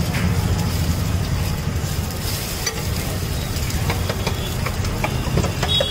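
Masala omelette sizzling in oil on a flat iron griddle, with a metal spatula scraping and tapping on the griddle as it works under the omelette to flip it. A steady low rumble runs underneath.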